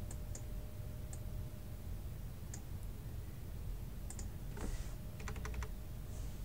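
Scattered computer mouse clicks and keyboard keystrokes: a few single clicks, then a quick run of several about five seconds in, over a low steady background hum.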